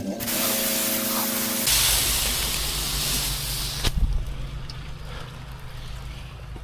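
Pressure-washer spray hissing steadily, then cutting off suddenly about four seconds in, with a low machine hum running underneath.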